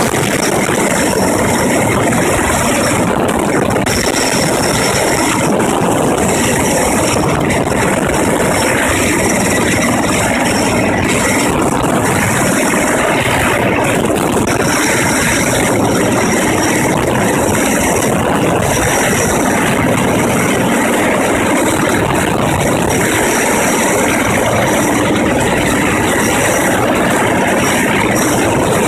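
Erickson S-64 Air-Crane heavy-lift helicopter hovering overhead: loud, steady rotor and twin-turbine noise that holds an even level throughout.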